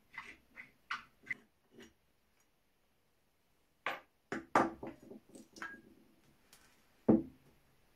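A screwdriver working a rusty screw out of a Chassepot rifle part, with short scraping creaks. After a pause come several knocks and clinks as the rusty parts are handled, and one loud thump near the end.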